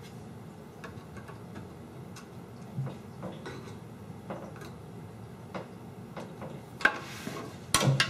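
Small, irregular metallic clicks and ticks from the paper carriage of a 1949 R.C. Allen Model 75 mechanical adding machine as its knob and parts are handled and worked by hand, with louder clicks near the end.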